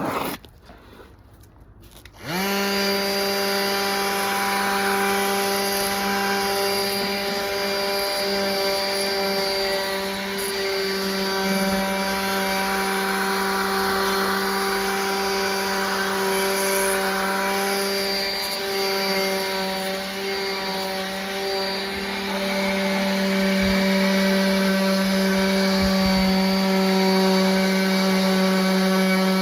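Electric power sander switched on about two seconds in, spinning up quickly and then running with a steady motor hum while sanding a wooden table leg.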